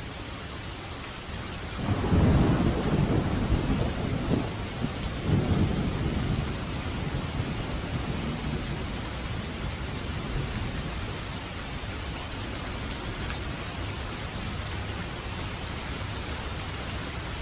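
Steady rain hissing, with a low rumble of thunder rolling in about two seconds in, swelling again a few seconds later and then slowly fading.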